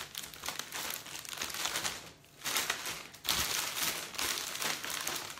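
Cellophane wrap crinkling and crackling as it is bunched in the hands and pulled tight above a gift hamper. It comes in dense bursts, with a brief pause about two seconds in and another just after three seconds.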